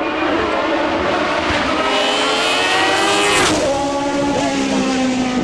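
Hill-climb race car accelerating hard toward the microphone, its engine note rising through the gears. It passes close about three and a half seconds in with a sudden rush of noise, then the note drops and carries on lower as the car pulls away.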